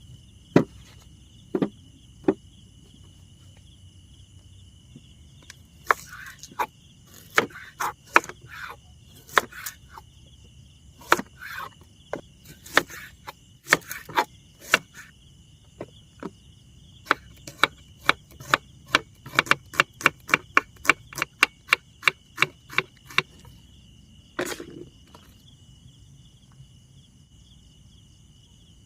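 Knife chopping on a wooden cutting board, at first in separate irregular strokes, then in a quick even run of about three to four chops a second, ending with one last knock.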